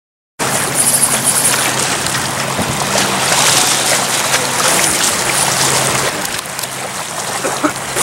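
Lake water washing and splashing against the rocks at the water's edge, a steady rushing wash that cuts in after a brief moment of silence.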